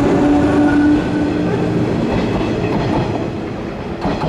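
JNR 103 series electric train moving off and drawing away: a steady motor whine that rises slightly in pitch over a running rumble that slowly fades. A sharp clack of the wheels over a rail joint comes just after four seconds in.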